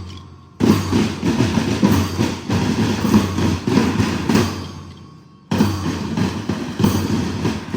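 Marching band drums playing a dense, steady march beat. They start suddenly about half a second in, fade down toward the middle, and start suddenly again at about five and a half seconds.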